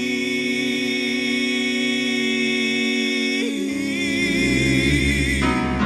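Southern gospel male quartet holding one long close-harmony chord on a single sung word. About halfway through, the top voices open into vibrato and the sound fills out lower and swells slightly, then the chord cuts off near the end.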